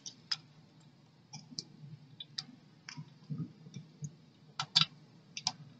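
Irregular light clicks and taps, about eight of them, of small parts being handled and pressed together while a sprung wheel truck is fitted onto the underside of an O-gauge model steam locomotive's chassis.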